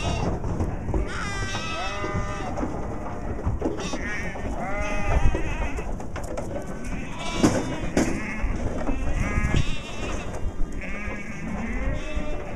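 A flock of sheep bleating, many calls overlapping one after another, each with a quavering pitch.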